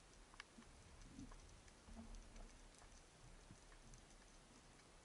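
Near silence underwater: faint, scattered, irregular clicks and crackles over a low hiss.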